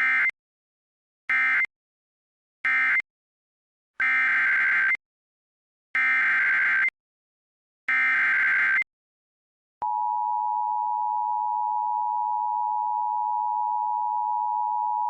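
Emergency Alert System digital data bursts and attention tone. First three short bursts of the end-of-message code, closing the previous warning. Then three longer, roughly one-second bursts of the SAME header, opening the next alert. About ten seconds in, a steady two-note attention tone starts and holds.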